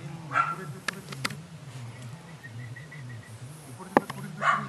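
Belgian Malinois puppy giving a few short, excited barks, one near the start and another near the end, with a sharp click about four seconds in.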